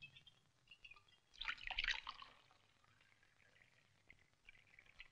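A drink poured from a glass decanter into a glass: a brief faint gurgle and splash about a second and a half in, with a few light ticks around it.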